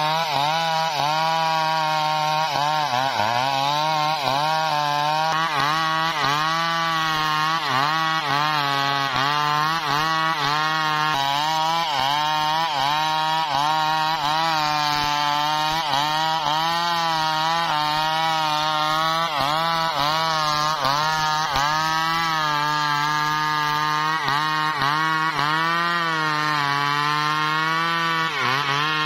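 Two-stroke Stihl chainsaw running under load, ripping through a teak log. Its engine pitch wavers constantly as the chain works through the wood, with a short dip in speed about three seconds in and again near the end.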